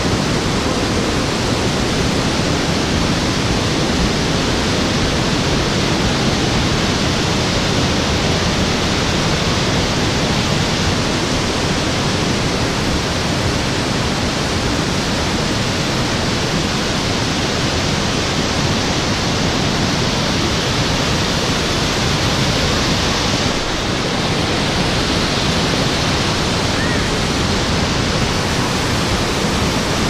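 Steady rush of small waterfalls and cascades pouring over boulders in a rocky mountain stream.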